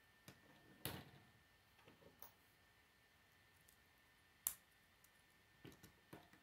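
Plastic K'nex construction pieces clicking and snapping together as they are handled and pressed into place: a scattered series of small clicks, with the sharpest snap about four and a half seconds in.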